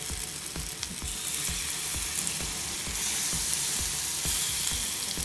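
Takoyaki batter sizzling in hot oil in the wells of an electric takoyaki pan as more batter is ladled in; the sizzle grows louder about three seconds in.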